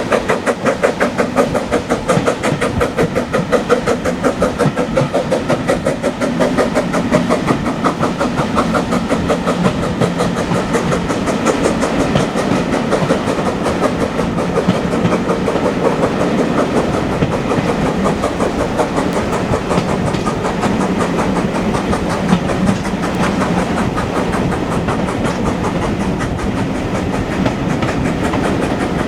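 Steam train running, with a fast, even pulsing of beats and rail noise that is most marked in the first few seconds.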